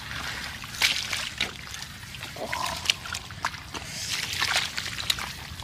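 Footsteps in rubber boots squelching through wet mud, an irregular run of short wet sounds.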